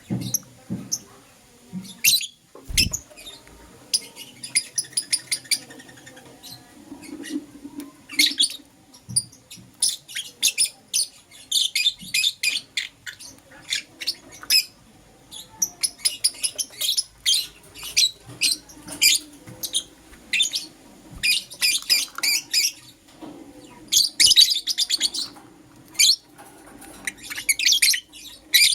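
Pet lovebirds chirping in rapid runs of short, high-pitched calls and trills, with brief pauses between runs.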